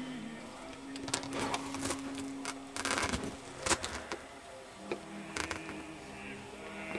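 Soft sustained music chords that change about five seconds in, over irregular scratching and tapping of a pen writing on paper.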